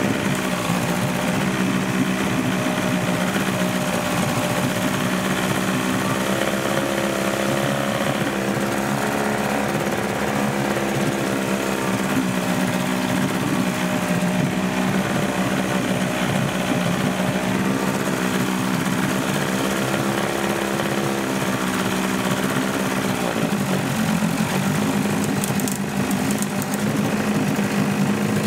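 Evinrude 35 hp two-stroke outboard, cowling off, running steadily in a test tank. Its speed wavers slightly and dips briefly about 23 seconds in.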